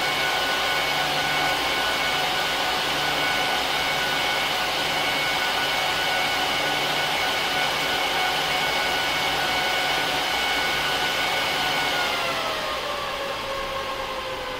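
HP ProLiant DL380p Gen8 server's cooling fans running at high speed: a steady rush of air with a layered whine. About twelve seconds in, the fans start to spin down, the whine falling in pitch and the noise getting quieter.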